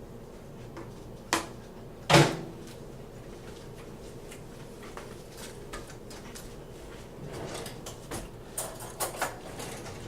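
Kitchen handling noises: a sharp knock about a second and a half in, a louder knock just after two seconds, then a scatter of lighter clicks and knocks near the end.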